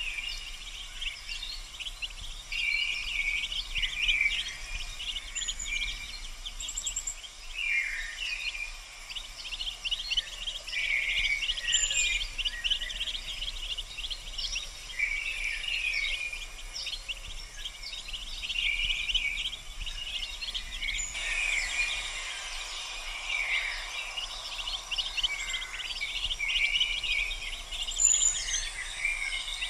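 A brood of mallard ducklings peeping continuously, many short high chirps overlapping. A faint steady hiss rises in the background about two-thirds of the way through.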